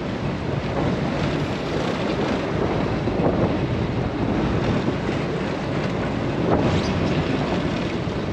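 Wind buffeting the microphone over the steady rush of waves and wake churning around a boat's stern.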